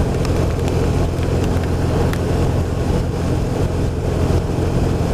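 BMW R1200RT flat-twin engine running steadily at a constant low road speed, under wind and road noise. The drone holds an even pitch with no revving.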